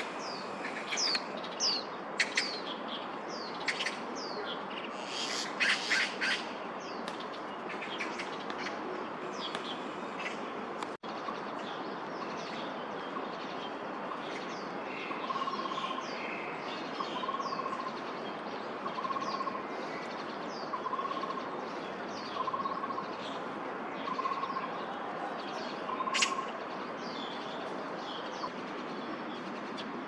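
Birds calling: a few bursts of harsh rattling magpie chatter in the first six seconds, over many short, high chirps that fall in pitch and repeat throughout. From about halfway, a slow series of lower notes about one a second joins in.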